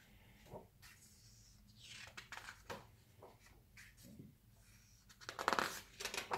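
Pages of a photo book being turned by hand: several soft paper rustles and flips, the loudest a little before the end.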